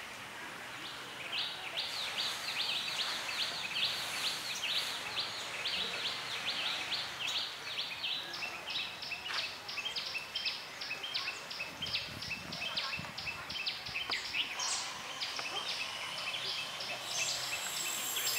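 A rapid, steady series of high chirps, about five a second, kept up for many seconds over outdoor background noise.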